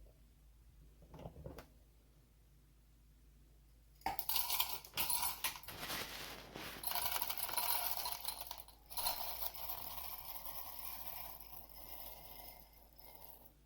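SHARDOR electric blade coffee grinder starting about four seconds in and running for about nine seconds in a few short pulses, with a steady motor whine and coffee beans rattling against its stainless steel bowl.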